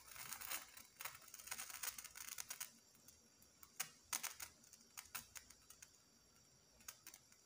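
Faint, irregular crackling and ticking of a whole eggplant's skin charring on a wire mesh over a glowing electric heater coil. The clicks come thick and fast for the first few seconds, then thin out to scattered ticks.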